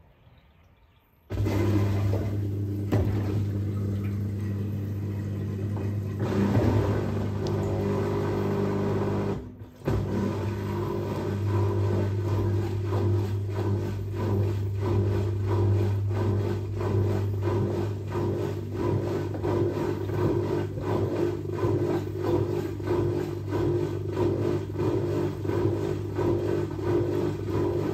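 Fisher & Paykel WL8060P1 top-loading washing machine starting up abruptly from quiet and running with a steady motor hum. It stops briefly about ten seconds in, then runs on with a fast, regular pulsing.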